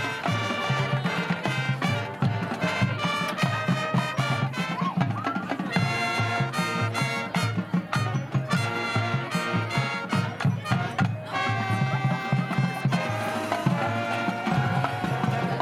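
Upbeat brass-led music with a steady percussive beat.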